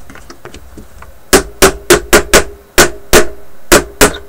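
Small hammer striking the riveted metal lid hinges of a wooden record-player case, to tighten the worn hinge rivets. A quick run of about nine sharp blows starts about a second in, after a few faint taps.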